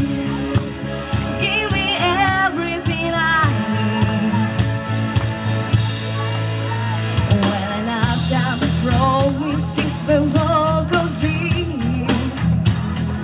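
A woman sings a song live into a handheld microphone over backing music with a steady bass line. She sings a phrase in the first few seconds, the backing music carries on alone for a few seconds, and she comes back in about eight seconds in.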